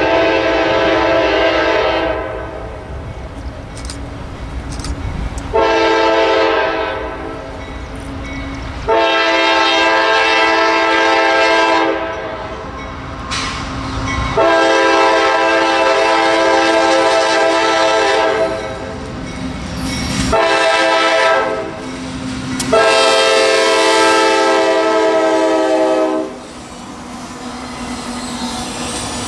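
A diesel freight locomotive's air horn sounds a string of long blasts, each a chord of several notes, with gaps of a second or two between them. A shorter blast comes before the last long one, the pattern sounded when a train approaches a grade crossing. The train's rumble and wheel clatter carry on beneath and between the blasts.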